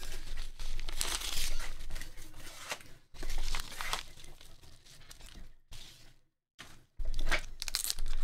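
Yellow kraft paper envelope being torn open and handled, paper tearing and crinkling in several bursts as the card in its holder is pulled out.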